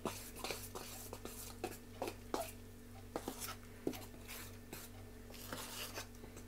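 Fork stirring flour and hot water into a dough in a stainless steel bowl: faint scratchy stirring with irregular light clicks of the fork against the metal.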